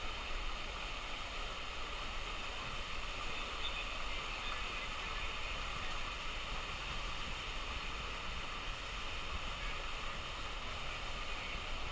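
Steady rush of water running down the lanes of a four-lane mat-racing water slide into its run-out.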